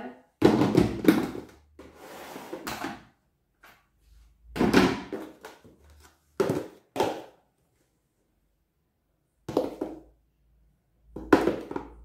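Flour being scooped and poured from a plastic storage box into a plastic bowl on a kitchen scale: a series of short knocks, thunks and scraping rustles, about seven in all, with short pauses between them.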